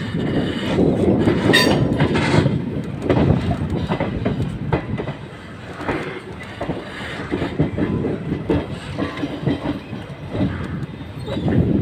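Passenger train coaches running on a curve, heard from an open coach door: a steady rumble with rhythmic clicking of wheels over rail joints, and a brief high squeal about one and a half seconds in.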